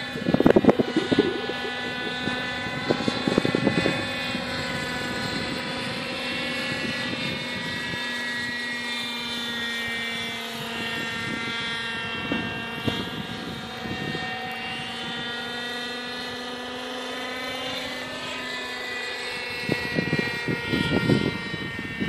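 Hirobo radio-controlled model helicopter flying, its engine and rotor whine rising and falling in pitch as it manoeuvres. A few rough bursts of rumbling noise, like wind buffeting the microphone, come near the start and near the end.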